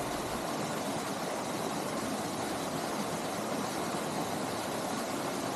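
Small waterfall, about 15 feet tall, pouring into a rock pool: a steady, even rush of falling water.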